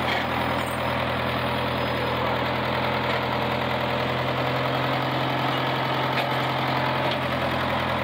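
International Harvester 3500A backhoe-loader engine running steadily at idle.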